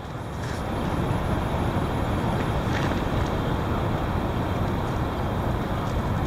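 Heavy wind gusting against the microphone: a deep, steady rushing noise that builds over the first second and holds.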